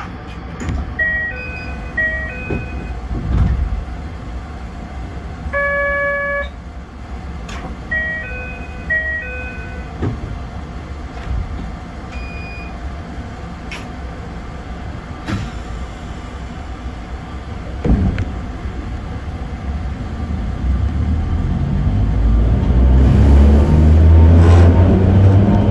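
A short electronic chime melody sounds twice, with a single held buzzer-like tone between them, aboard a stopped 762 mm narrow-gauge electric train. Near the end the train's traction motors whine, rising in pitch and growing louder as it starts off.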